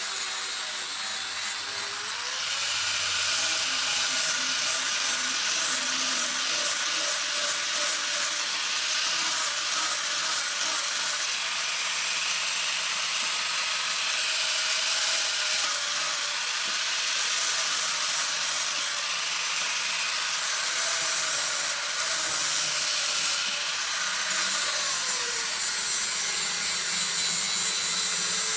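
Power grinder working a steel knife blank: a continuous grinding hiss over a steady motor tone whose pitch shifts a couple of times as the load changes.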